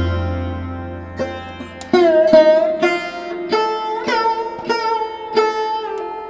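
Background music on a sitar-like plucked string instrument: single plucked notes with bending pitches, over a low drone that fades out in the first two seconds.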